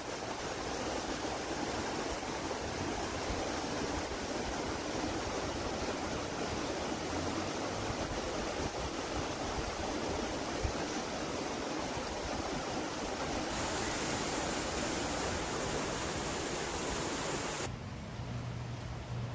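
Fast-flowing creek of white water rushing past, a steady noise; it cuts off suddenly near the end, leaving a quieter background with a low hum.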